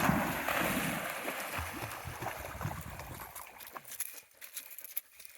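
A dog splashing through shallow river water after a thrown ball. It is loudest right at the start and fades away over about three seconds, leaving a few faint splashes and clicks.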